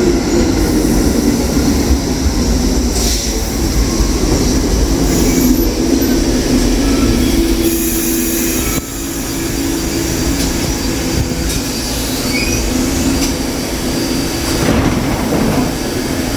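New York City subway train running on its steel wheels, a steady rumble with faint wheel squeal.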